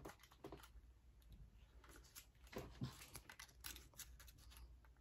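Faint, irregular plastic clicks and scrapes from handling a Sony ZV-1 compact camera while fitting a part into its battery compartment at the bottom, under a steady low room hum.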